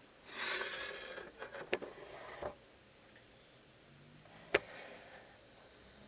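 Rustling handling noise with a few light clicks in it, then one sharp click about four and a half seconds in.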